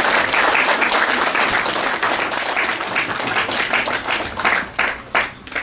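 Audience applauding. The applause thins out near the end into a few separate last claps, then stops.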